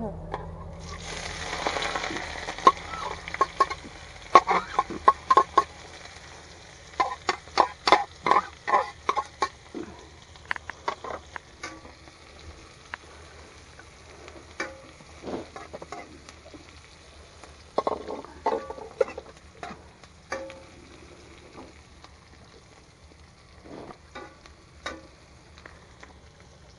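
Food sizzling in a frying pan over a gas burner while a spatula stirs it, scraping and knocking against the pan in runs of quick strikes. The sizzle starts about a second in and then eases off.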